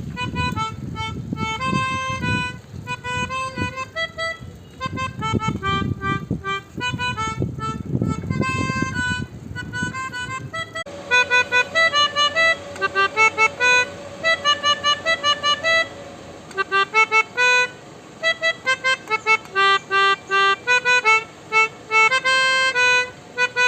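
Basuri telolet horn on a bicycle playing a melody of reedy horn notes. For the first ten seconds or so a low rumble runs under the tune. After that the notes come as short separate toots.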